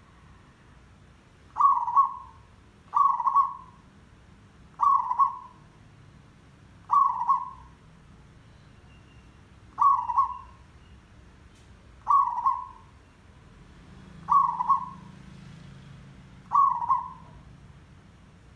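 Zebra dove cooing its rolling challenge call, the tandang: eight short phrases of two or three quick notes each, about half a second long, repeated every two seconds or so.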